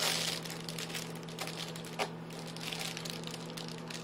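Reflectix foil bubble insulation crinkling and crackling as it is bent and wrapped into a tube by hand, with a louder rustle at the start and a sharp crackle about two seconds in, over a steady low hum.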